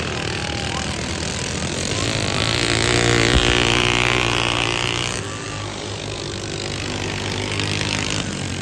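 Several racing riding lawn mowers running hard around a dirt track. The engine sound swells to its loudest about three seconds in as one comes close, then drops back a little after about five seconds.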